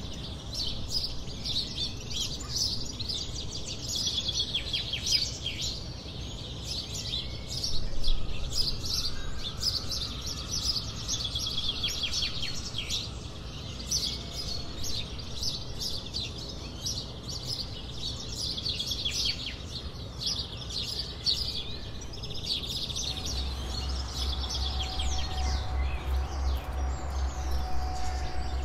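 Outdoor birdsong: many small songbirds chirping and trilling in quick high phrases over a low rumble of wind. Near the end a low, evenly pulsing rumble comes in underneath.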